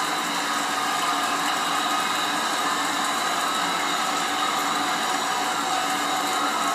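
Large arena crowd cheering and screaming in a steady, unbroken wall of noise.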